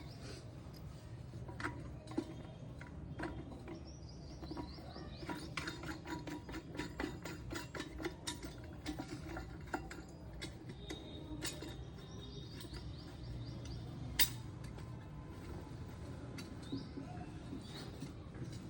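Scattered metallic clicks, clinks and light knocks over a low steady hum, with short runs of rapid high ticking; the sound of metal tools and parts being handled during plumbing work.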